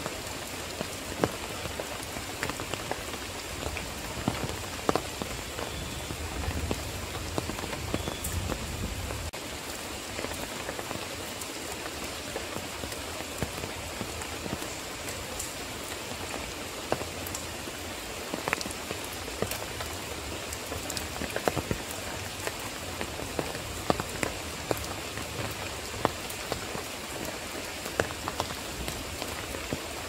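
Steady rain falling, with many individual drops striking sharply throughout, and a faint low rumble underneath for the first nine seconds or so.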